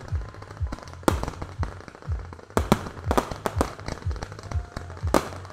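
Professional display fireworks firing in rapid volleys: a string of sharp launch reports and small bursts, one strong report about a second in, then a dense run of shots through the second half.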